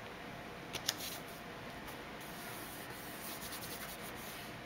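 Hands pressing and rubbing a cardstock panel down onto a paper card base: a soft paper-on-paper rubbing, with a couple of light clicks about a second in.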